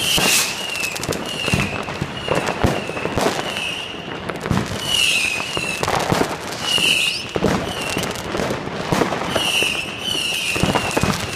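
New Year's fireworks going off all around: a dense, irregular run of bangs and crackles. Over them a short high tone repeats about every half second to a second.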